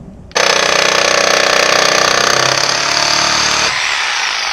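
Electric power saw cutting a piece of metal to length: it starts suddenly at full speed, runs through the cut for about three seconds, then is switched off and winds down with falling pitch.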